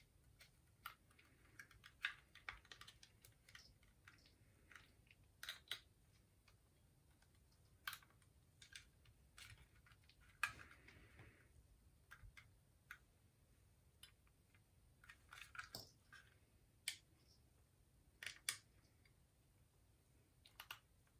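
Faint, irregular clicks and short scrapes of a precision screwdriver turning small screws into the plastic case of a caravan motor mover remote, with the case and tool being handled.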